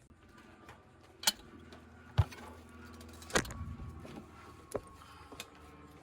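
A few sharp clicks and knocks, like tools or metal parts being handled, over a steady low machine hum.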